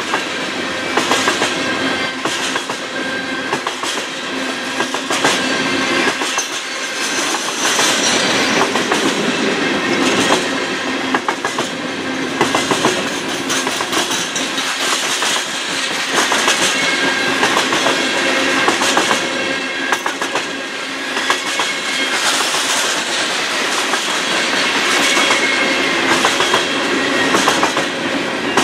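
Freight train of steel coal hopper cars rolling past: a steady rumble of wheels on rail with rapid clicking over the joints, and thin high wheel squeals that come and go.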